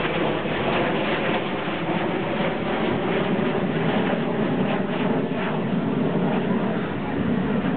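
Steady engine drone of a formation flypast: a Transall C-160R tanker's two turboprop engines with Mirage 2000 jet fighters flying alongside.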